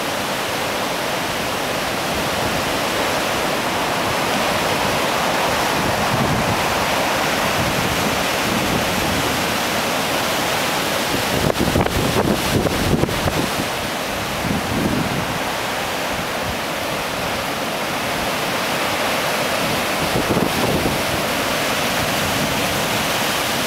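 Heavy storm surf pounding and rushing over a rocky shore, a dense continuous roar of water. Wind buffets the microphone, and there is a burst of louder crashing about halfway through.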